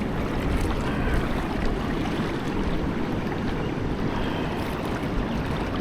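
Steady low rushing noise of wind on the microphone over flowing river water.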